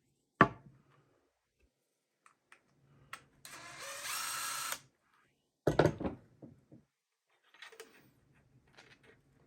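Cordless drill running in reverse for about a second and a half, backing a screw out of wood. A sharp click comes just before it, and a loud clatter of knocks follows about six seconds in.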